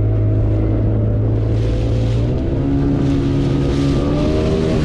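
Speedboat engine running under way. Its note shifts a little higher about halfway through. A rushing hiss swells twice over it.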